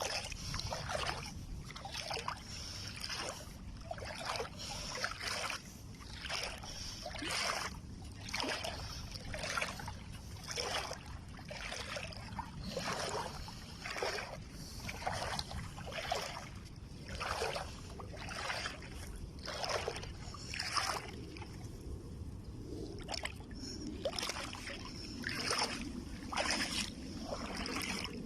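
Steady walking footsteps, about one and a half a second, pausing briefly about three-quarters of the way through, over a low rumble of wind on the microphone.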